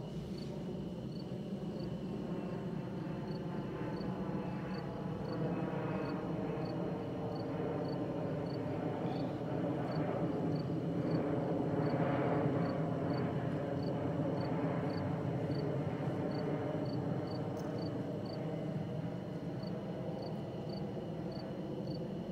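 Steady low rumbling background noise, with a faint high cricket chirp repeating about twice a second, pausing briefly near the end.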